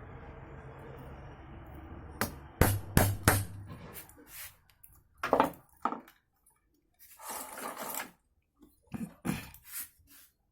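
A low steady hum that stops about four seconds in, overlapped and followed by a run of sharp knocks and clinks and a short rustle, the sounds of hard parts being handled.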